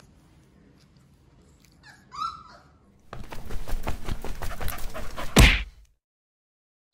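A sleepy beagle puppy gives a short high whimper about two seconds in. From about three seconds a loud, noisy rushing sound effect follows, ending in a sharp burst and cutting off suddenly.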